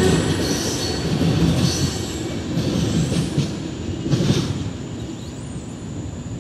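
Freight train of open-top hopper cars rolling away from the crossing: wheels squealing and clattering over the rails, fading steadily as the train moves off.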